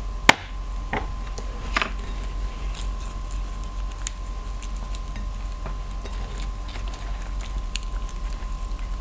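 Chopsticks knocked down onto a wooden cutting board with a sharp click just after the start, then soft crinkling and rustling of fresh lettuce leaves as hands fold a lettuce wrap around grilled meat, with a steady faint hum underneath.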